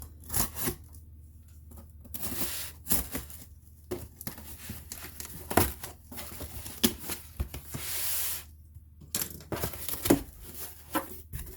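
Packaging being handled and torn: rustling and tearing with a series of short knocks and taps against a cardboard box.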